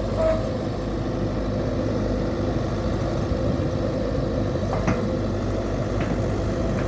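Heavy diesel engine of construction machinery running steadily, with a brief click about five seconds in.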